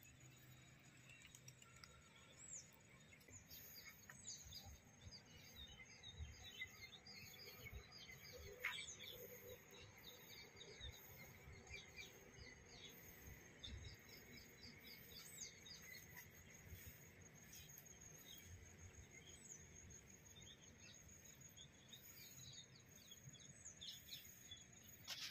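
Near silence, with scattered faint bird chirps and short high calls over a thin steady high tone.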